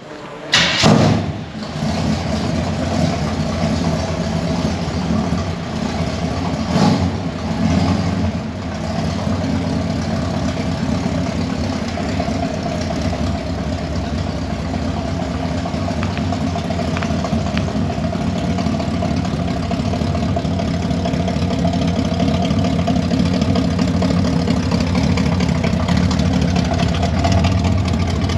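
1972 Chevy C20 truck engine starting about a second in, then running steadily at idle, with one short knock around seven seconds in.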